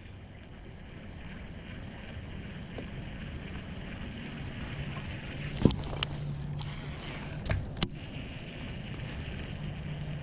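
Steady rush of moving river water and wind around a kayak, slowly growing louder, with a handful of sharp knocks and clicks a little past halfway.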